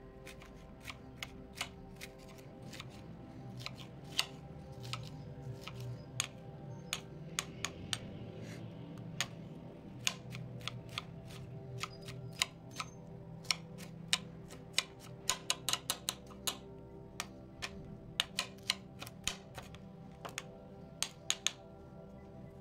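Chef's knife chopping a green bell pepper on a glass cutting board: sharp, irregular taps of the blade striking the glass, coming several a second at times. Soft background music plays underneath.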